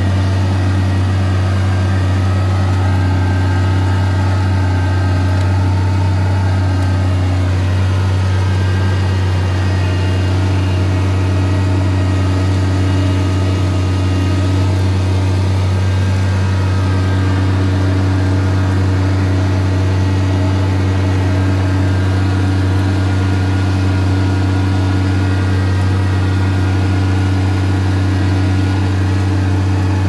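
John Deere tractor's diesel engine running steadily under load, a constant low drone as it pulls a mounted reversible plough through wet soil.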